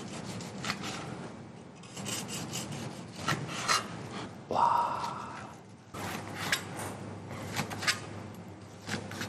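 Cleaver slicing through the crisp skin and meat of a roast leg of lamb on a plastic cutting board: a series of short rasping, crackling strokes as the crispy skin is torn open by the blade. A short ringing tone sounds about halfway through.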